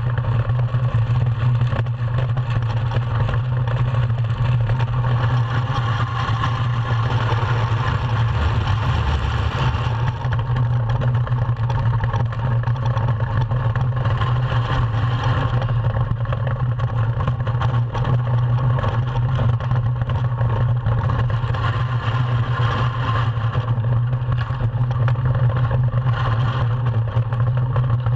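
Ice yacht sailing fast over the ice: a steady low rumble and hiss from its steel runners on the ice and the rushing wind, picked up on the hull.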